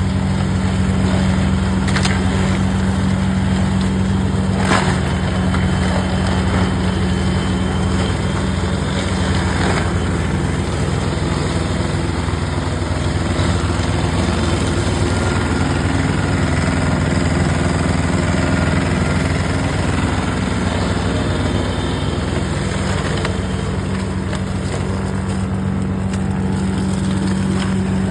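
Tractor's diesel engine running steadily while driving a Shaktiman rotary mulcher, with a few sharp knocks about 2, 5 and 10 seconds in.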